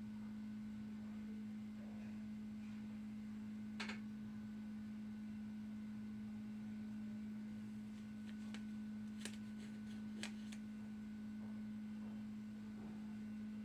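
A steady humming tone with a few faint clicks, one about four seconds in and a small cluster a little past the middle.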